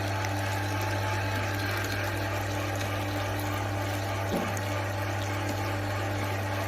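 Electric meat grinder (XZW-12A, 1.1 kW) running steadily with a constant low hum and a light brief knock about four seconds in.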